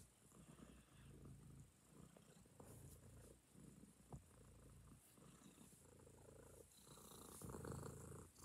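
A tabby cat purring close to the microphone: a faint low rumble that swells and fades about once a second with its breathing, a little louder near the end.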